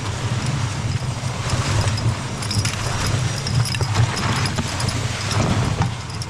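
Sled runners scraping and hissing over snow as a Clydesdale team pulls the sled downhill, with light clinking of harness hardware and a steady low rumble.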